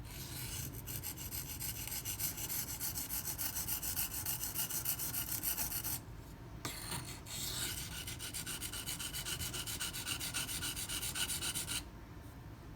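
Knife blade of 154CM steel scraping back and forth on a coarse 240-grit silicon carbide sharpening stone, while the tip of the edge is worked. The strokes come at about four a second, break off briefly about six seconds in, resume, then stop shortly before the end.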